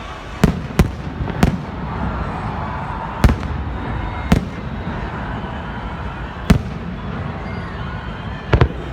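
Fireworks going off: seven sharp bangs at uneven intervals over a steady din.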